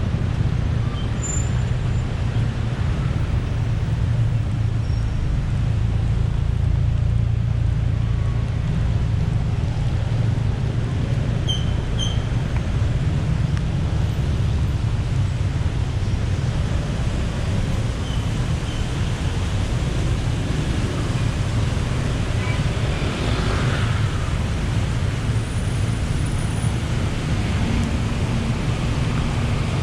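Steady low rumble of city street traffic, with engines running and vehicles passing. A couple of short high chirps come about twelve seconds in.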